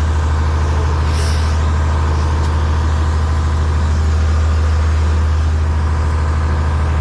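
Diesel engine of a 1978 Hein-Werner excavator idling steadily with a low, even hum.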